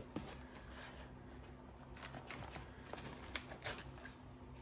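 Faint scattered rustles and light clicks of hands working among the leaves of a potted lamb's ear plant to pull out its plant tag, over a low steady hum.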